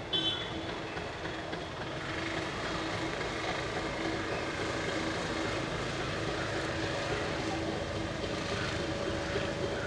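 Nilgiri Mountain Railway diesel train running: a steady engine drone with the rolling noise of the coaches on the track. A brief high squeal comes right at the start.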